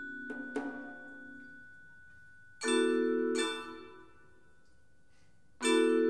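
Tuned mallet percussion, marimba and metal keyboard instruments, struck in pairs of ringing chords: two softer strokes right at the start, a louder pair about two and a half seconds in, and another loud stroke near the end, each ringing briefly and dying away.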